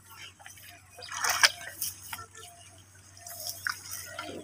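Hands groping and splashing in shallow paddy-field water while feeling for fish, with irregular small splashes and drips; the loudest splash comes about a second and a half in.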